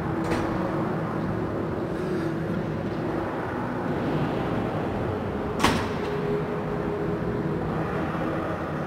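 Steady ice-rink arena noise with a low hum, during a stoppage in a hockey game. There is a faint click just after the start and one sharp, loud knock a little over halfway through.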